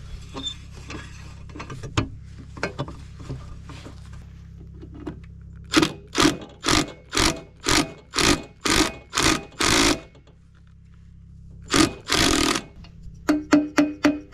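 A hand ratchet wrench working the side-cover bolts on a mini excavator: faint clicks, then a run of about nine quick ratcheting strokes, about two a second, and one more stroke a little later. Music with evenly spaced pitched strikes comes in near the end.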